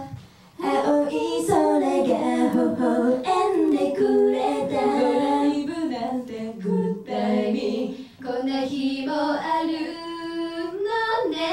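Female voices singing a J-pop song together, phrase by phrase, with short breaks between phrases near the start and about eight seconds in.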